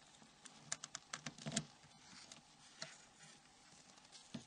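Faint, quick small plastic clicks and ticks as a mobile phone's plastic antenna assembly is worked free of its frame and handled. They come in a cluster about a second in, with single clicks later.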